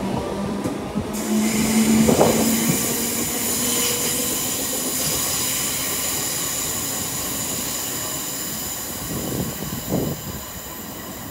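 A passenger train moving at the station, with a steady high-pitched squeal that sets in about a second in and slowly fades.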